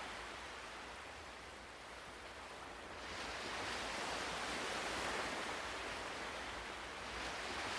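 Ocean surf washing in: a steady wash of waves that eases off, then swells up again about three seconds in.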